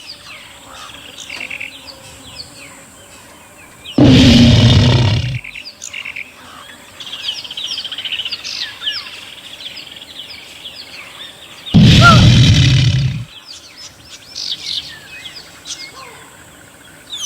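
Birds chirping and twittering steadily, broken twice by a loud animal roar about a second and a half long, about four seconds in and again about twelve seconds in.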